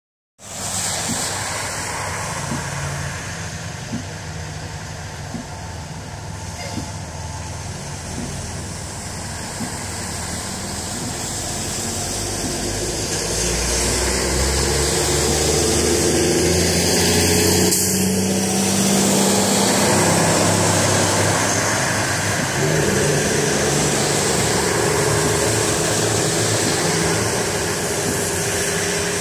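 A street sweeper truck's engine running and cars driving through deep standing water. Tyres throw up spray with a continuous hissing splash, which grows louder about halfway through as a car ploughs past.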